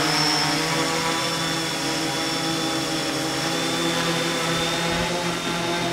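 A DJI F550 hexacopter's six E305 960kv brushless motors and propellers hovering: a steady buzzing whine of several tones, wavering slightly as the flight controller holds the craft hands-off.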